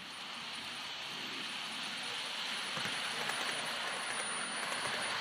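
Bachmann model train running on garden track, a steady rolling hiss of wheels on rail and motor that grows louder as the train approaches.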